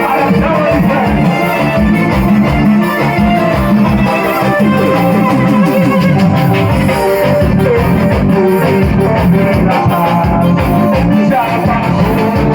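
Loud Latin-style music with singing and a heavy, steady bass beat, played through an event sound system.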